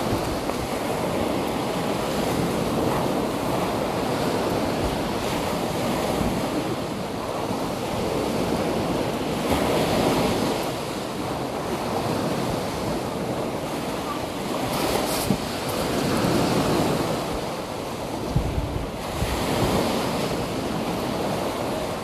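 Ocean surf: waves breaking and washing in as a continuous rushing noise that swells every few seconds. Wind buffets the microphone now and then.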